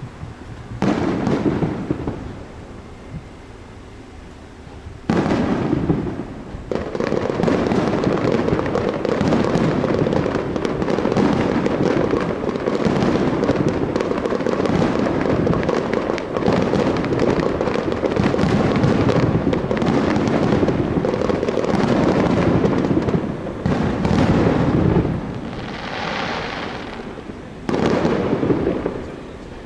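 Fireworks display: aerial shells bursting. A single bang about a second in, then from about five seconds a rapid, dense barrage of booms and crackling that eases near the end, with a last bang shortly before the end.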